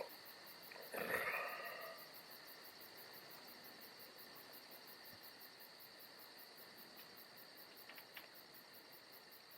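Crickets chirping faintly and steadily in quick, evenly repeating pulses. About a second in, a short voice-like sound rises over them.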